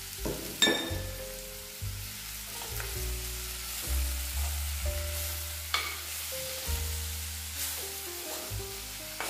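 Metal spoon stirring chicken and onions in a clay pot, scraping and clinking against the pot, with a sharp knock about half a second in; the food sizzles lightly underneath.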